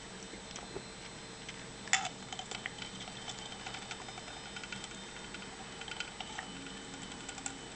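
Scattered light clicks and taps, with one sharper knock about two seconds in, over a faint steady hum: an African grey parrot's beak clicking and tapping as it drinks beer.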